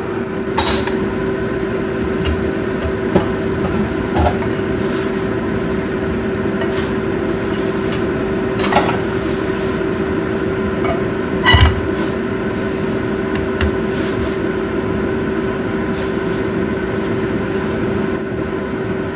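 Wooden spatula and wok clinking and scraping as stir-fried squid is scooped out onto a plate: a handful of separate clanks, the loudest about twelve seconds in, over a steady machine hum with one held tone.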